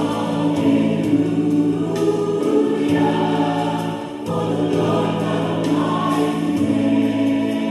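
Worship music with a choir singing over sustained chords, dipping briefly about four seconds in.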